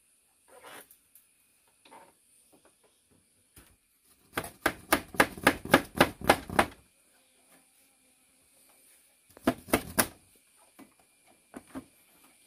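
A quick run of sharp knocks, about five a second, lasting a little over two seconds, followed about three seconds later by a shorter run of three or four knocks, with a few faint taps in between.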